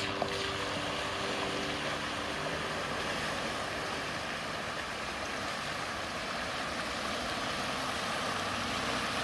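A Jeep Wrangler JL wading slowly through a deep mud puddle: a steady wash of sloshing water around its tyres, with the vehicle's running noise underneath.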